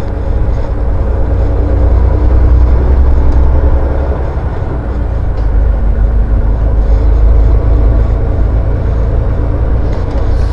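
Semi-truck's diesel engine running at low road speed, heard from inside the cab as a steady low drone that dips briefly about halfway through.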